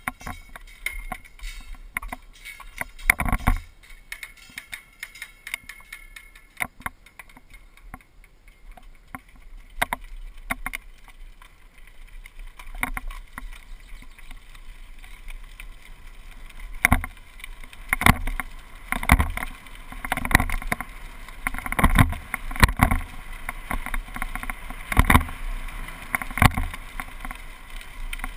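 Rattling and knocking of a GoPro HD camera's mount, shaken as a mountain bike rides down a gravel path. The knocks come irregularly, thickest in the last ten seconds.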